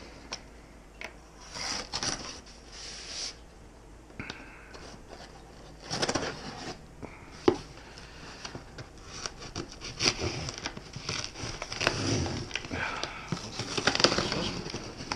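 A knife blade slitting the packing tape along a cardboard shipping box, with irregular scraping and rubbing of blade and hands on the cardboard and a few sharp clicks.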